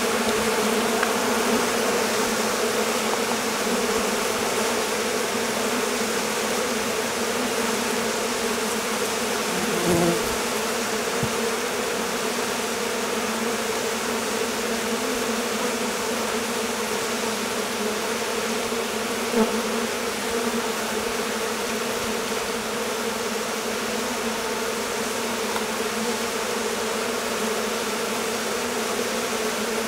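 Dense, steady buzzing of a honeybee colony massed at the hive entrance as it swarms, a many-winged hum. About ten seconds in, one bee buzzes louder for a moment, close to the microphone.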